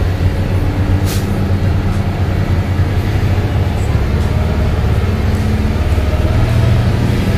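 Nissan Diesel CWA 260 tanker truck's diesel engine running with a steady low drone, with a brief hiss about a second in.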